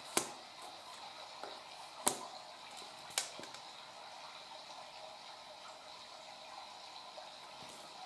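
Three sharp clicks or taps, one just after the start, one about two seconds in and a weaker one about three seconds in, over a faint steady room hiss.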